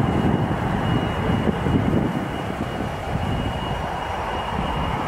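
Boeing 737-800's CFM56 jet engines on the landing rollout: a steady, loud rumble with a thin high whine, easing slightly about two seconds in.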